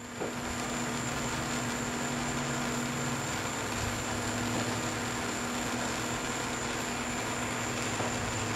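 Steady hiss with a constant low hum and a thin high whine from a heating tool held on a stuck lathe saddle part to free it.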